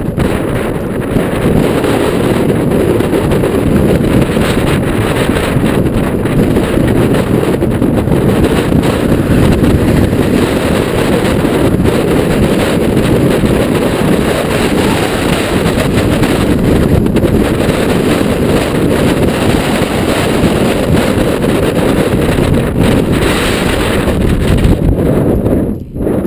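Strong wind buffeting the microphone in a steady, loud rush while a mountain bike is ridden in high winds.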